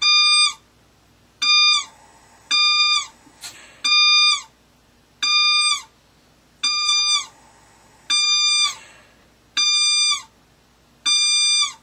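Low gas supply pressure alarm of an O-Two CAREvent ATV+/MRI pneumatic transport ventilator. It is an oscillating alarm: nine short tone beeps about every 1.4 s, each dipping slightly in pitch as it ends. It signals that the gas supply has dropped below the minimum safe operating pressure of 40.6 psi.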